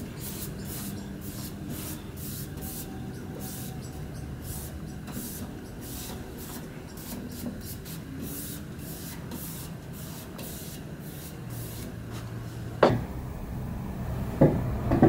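Paintbrush strokes swishing across a planed wooden tabletop as a liquid finish is brushed on, about two strokes a second, stopping about eleven seconds in. Near the end comes a sharp knock and then a few lighter knocks as the table is tipped and handled.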